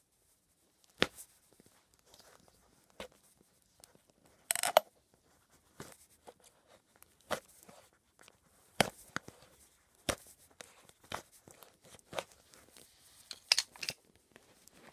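A knife blade stabbing, scraping and prying at a Nike Air Max 95's heel air bubble and the crumbling sole around it: a string of irregular sharp clicks and scrapes, with a longer tearing scrape about four and a half seconds in.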